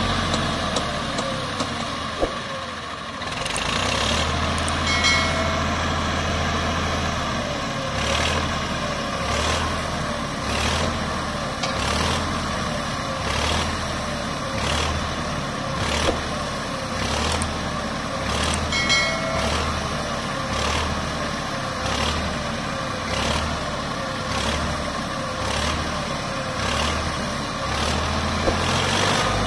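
Diesel tractor engine running under a steady load with a regular throb about every second and a quarter, driving the hydraulic tipper that raises a trolley full of sand.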